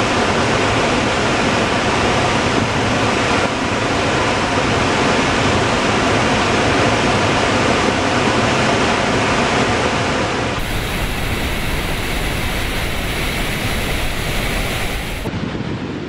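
Heavy water pouring from a concrete dam's open spillway gates: a steady, dense rushing noise. It changes abruptly to a hissier sound about ten seconds in.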